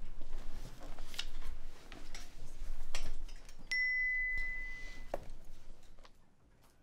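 Quiet classroom sounds of students at their desks, with a few light knocks and rustles. About three and a half seconds in, a steady high tone sounds for about a second and a half and is cut off with a click.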